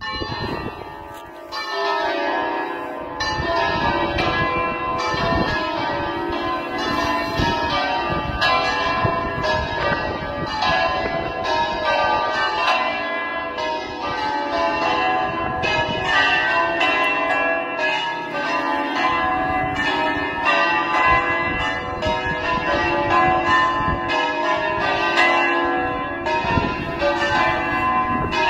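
Plenum of six church bells cast by the Cavadini foundry in 1953, tuned to a scale from C to A and rung in the Veronese system: all bells swinging and striking together in a dense, continuous, overlapping peal.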